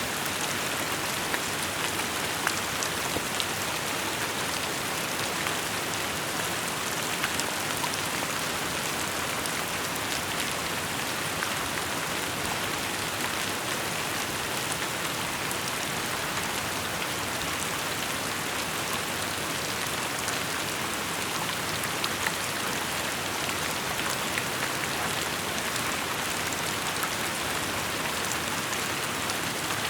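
Steady rainfall, a constant hiss with many small drop ticks and patters landing on surfaces.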